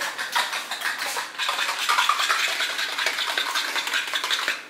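Fast, continuous clatter of kitchenware: a utensil worked rapidly against a bowl or dish, making a dense run of clicks and scrapes.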